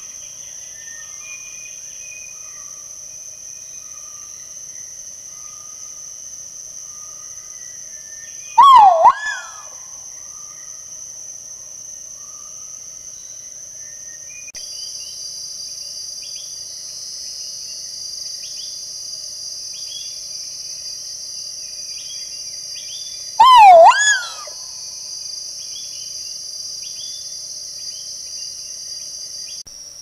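Male great argus pheasant giving two loud calls about fifteen seconds apart, each a short swooping note followed by a fainter one. A steady drone of forest insects and faint small-bird chirps run underneath.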